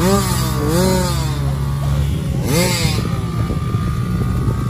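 Small kids' dirt bike engines idling steadily on the starting line, with children's voices calling out over them in the first second and again near the middle.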